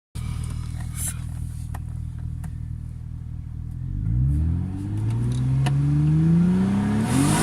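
Hyundai Coupe's stock 2.7-litre V6 idling steadily, then revved up slowly about four seconds in, its note climbing steadily in pitch.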